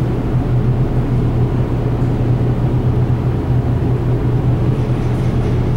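Steady low engine rumble with a deep, even hum that does not rise or fall.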